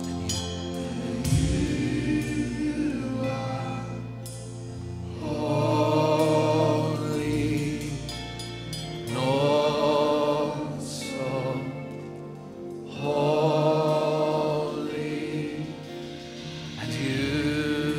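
Live gospel worship music: a singer holds long, wavering notes in four phrases a few seconds apart over steady backing chords from the band, including acoustic guitar.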